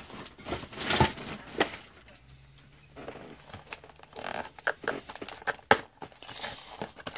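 Crinkling and rustling of packaging as hands open a box of trading cards and lift out the foil-wrapped packs, with scattered clicks and taps; the sharpest click comes a little before six seconds in.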